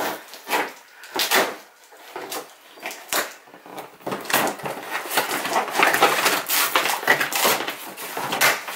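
Cardboard shipping box being ripped open and handled: scattered scrapes and tears at first, then a denser stretch of scraping and crackling cardboard from about four seconds in as the flaps are pulled apart.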